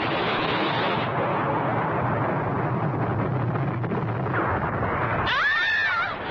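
Cartoon sound effects of a spaceship exploding: a long, rumbling blast noise. Near the end a rising sweep leads into a brief warbling electronic tone.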